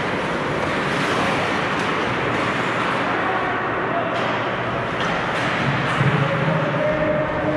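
Ice hockey play heard from behind the net: a steady scrape and hiss of skates on the ice, with an occasional sharp stick or puck click and players' voices.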